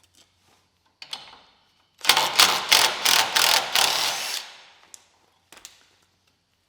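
Cordless impact driver hammering on a socket for about two seconds, with a rapid even rattle, most likely breaking loose a 15mm bolt. There is a short scrape of tools just before it and a few light clicks after.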